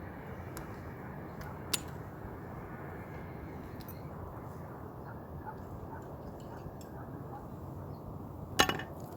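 Steady hiss of outdoor background noise, with a sharp click about two seconds in and a louder cluster of knocks near the end.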